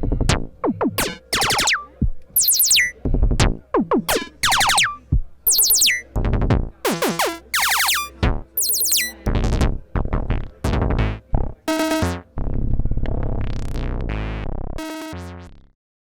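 Dreadbox Dysmetria synthesizer playing a rhythmic sequence of short, sharp notes, many with fast falling pitch sweeps like zaps. Near the end a longer held tone swells and fades out, then the sound stops.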